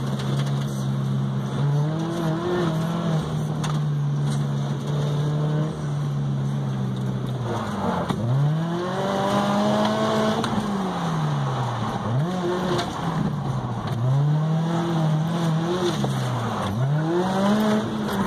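Supercharged Scion FR-S's 2.0-litre flat-four engine, heard from inside the cabin. It holds steady revs for the first several seconds, then revs climb and drop back again and again, about five times, through the second half.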